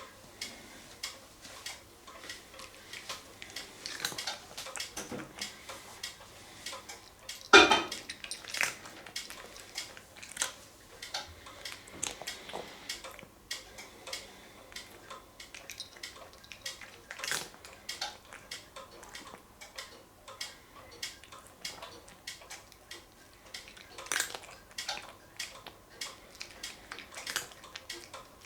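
A cat eating crunchy dry cat treats from a dish: many small, irregular crunches and clicks of the pieces against the dish, with one louder knock about seven and a half seconds in.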